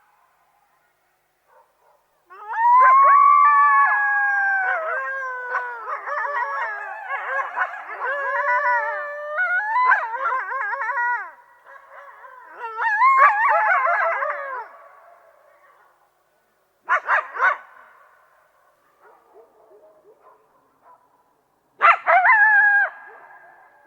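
Coyotes howling and yipping, several voices overlapping in long wavering, gliding howls, followed by a burst of quick yips and two short sharp yelping calls near the end.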